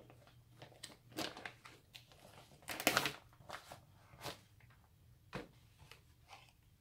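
Wig packaging being opened by hand: a series of irregular short rustles, the loudest about three seconds in.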